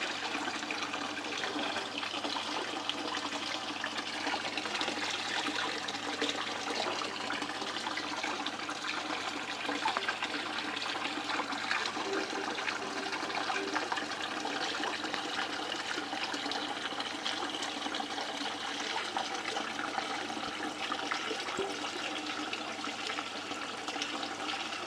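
Water running steadily over a home-built Miller table, a shallow water table for catching fine gold, with a continuous trickling rush.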